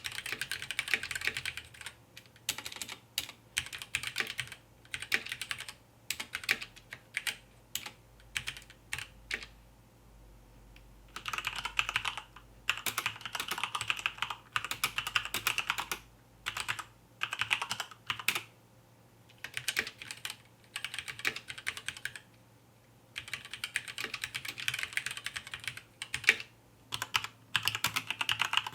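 Mechanical keyboard with linear red switches being typed on: fast runs of keystrokes with a few short pauses between runs.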